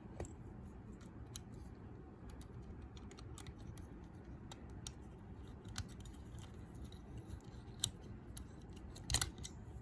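Small metal clicks and scrapes from thin steel parts of a lever lock, its levers and spacers, being worked out of the lock case. The clicks come scattered, with sharper ones near the end.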